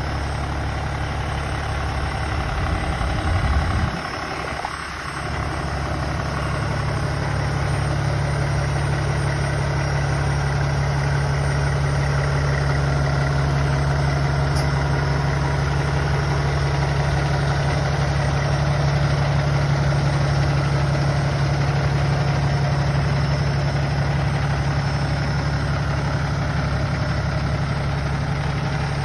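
Peterbilt 567 dump truck's engine idling steadily, with a short break in the sound about four seconds in.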